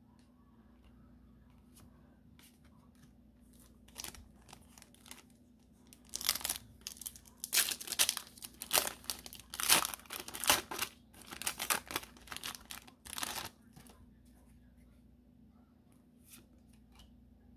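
Foil wrapper of a Pokémon 151 booster pack being torn open and crinkled in the hands: a run of loud crackling and tearing starting about six seconds in and lasting some seven seconds, after a single tap about four seconds in.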